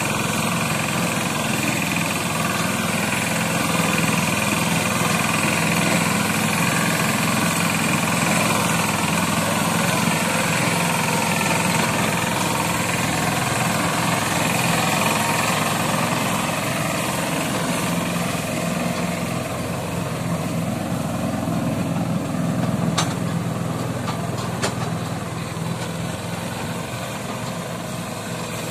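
Eicher 188 mini tractor's diesel engine running steadily while pulling a trolley loaded with sugarcane, growing a little fainter near the end as it moves away. Two brief clicks about two-thirds of the way through.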